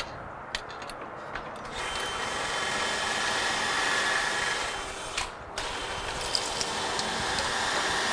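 Cordless drill with a pocket-hole bit boring into a board through a pocket-hole jig. The drill starts about two seconds in and runs steadily, stops briefly near the middle, then starts again for a second hole.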